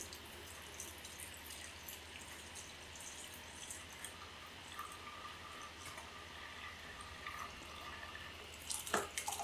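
Thin stream of dashi stock being strained from a metal pot through a paper-towel-lined strainer: faint trickling and dripping. A few sharper clicks come near the end.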